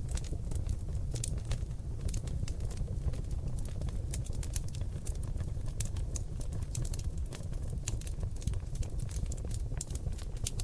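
Oak logs burning in a fireplace: a steady low rumble of flame with a dense, irregular run of sharp crackles and pops, several each second.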